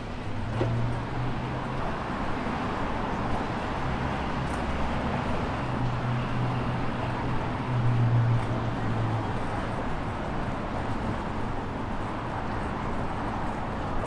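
City street ambience of steady road traffic, with a low engine hum that swells and is loudest about eight seconds in.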